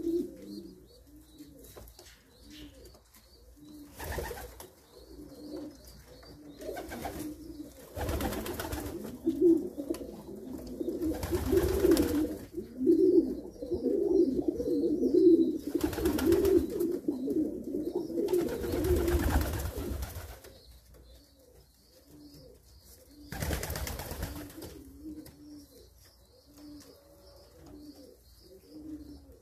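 Domestic pigeon feeding its two squabs: low, pulsing coo-like sounds, loudest and most continuous through the middle, with faint high cheeping. A few brief rustling bursts are scattered through it.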